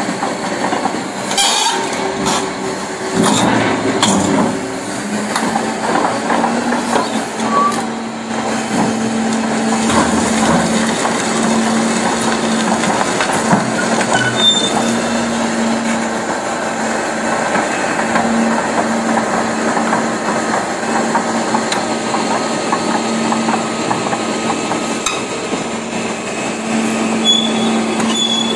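Steel crawler track chains rolling over a concrete floor topped with NEODUR HE 65 metallic hard aggregate, the track plates clanking and grinding against the surface, with a few heavier knocks in the first few seconds. A machine's engine runs steadily underneath.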